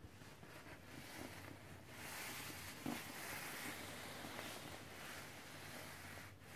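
Glossy nylon down jackets rustling and swishing as a hand squeezes and rubs the puffy fabric. The rustle grows louder about two seconds in, with a short knock near three seconds.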